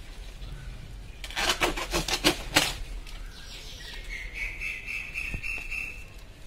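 Banana leaves rustling and crackling close to the microphone, with a dense run of crisp rustles from about one to nearly three seconds in. A thin, steady high-pitched call or chirp follows for about two seconds near the end.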